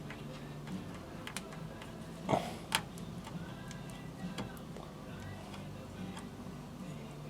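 Scattered light metallic clicks and two louder knocks, about two and a half seconds in and half a second apart, from tools and parts being handled under the car, over a low steady hum.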